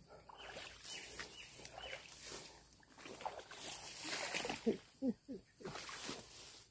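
Leaves and branches rustling and crackling in irregular bursts as someone pushes on foot through dense undergrowth.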